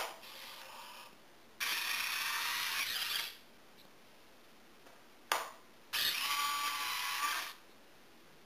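Rotating RC landing-gear retract unit cycling twice, lowering and then retracting the main gear leg: each time a sharp click and a short quieter whir, then a small geared motor whirring for about a second and a half before stopping.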